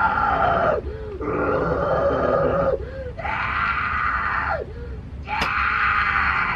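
Guttural growled, screamed vocals in four long phrases of about a second and a half each, every phrase rising and falling in pitch, with short gaps between them.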